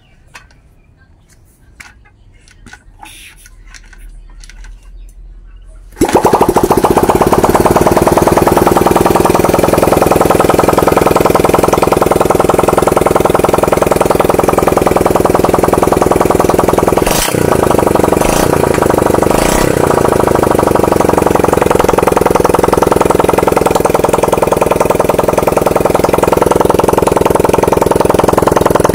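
Yamaha STX 125 motorcycle engine, fired by a 4-pin battery-operated CDI with no wiring harness, catching about six seconds in after a few faint clicks, then running loudly and steadily. Its sound changes briefly with a few sharp clicks about 17 seconds in. It starts and keeps running, so the CDI conversion works.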